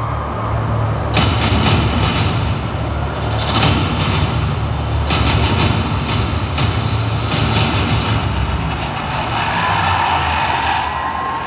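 Song intro playing loud over a concert sound system: a heavy, engine-like low drone with sharp hits every second or two and a slightly rising whine near the end.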